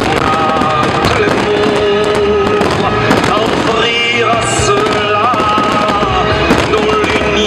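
A fireworks display with many shells bursting and crackling in quick, irregular succession, over music with long held notes.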